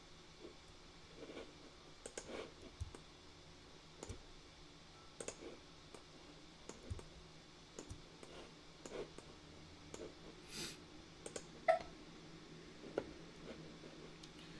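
Faint computer mouse clicks at irregular intervals, a dozen or so short sharp clicks, as pieces are picked and placed in CAD software.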